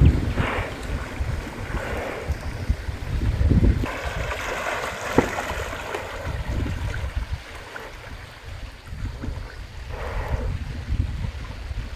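Swollen, muddy floodwater rushing and splashing as cattle swim across the river, with wind buffeting the microphone in a low rumble.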